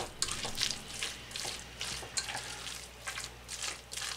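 Spoon stirring shredded chicken salad dressed with mayonnaise in a stainless steel bowl: repeated wet squelching strokes, about two or three a second.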